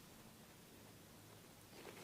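Near silence: faint steady room hiss and hum, with a few faint soft ticks and rustles starting near the end.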